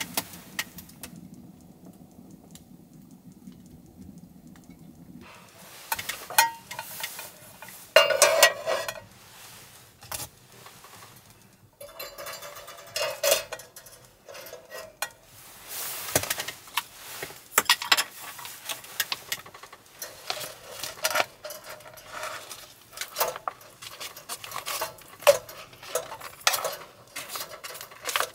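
Metal cookware being handled: a small pot set down on a portable cassette gas stove, with repeated clinks, knocks and scrapes and some rustling. A low steady hum runs through the first few seconds and stops about five seconds in.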